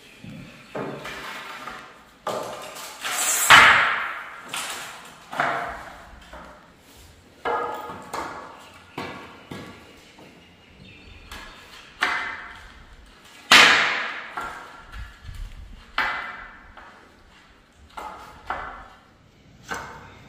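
Sharp single knocks on wooden skirting boards as they are fitted along the base of a wall, each ringing briefly. They come irregularly, one every second or two, with two much louder blows, one about three seconds in and one past the middle.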